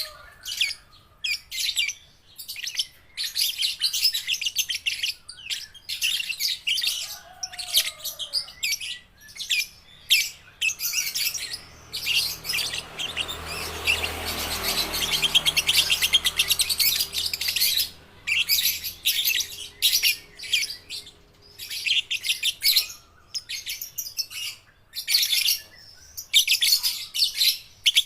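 Young lovebird chattering in rapid, high-pitched rattling trills, in bursts of about a second with short gaps. The trills run together into a longer unbroken stretch around the middle.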